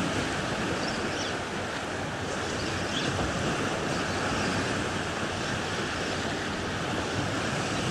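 Small waves washing onto a shallow sandy beach, a steady surf noise with wind buffeting the microphone.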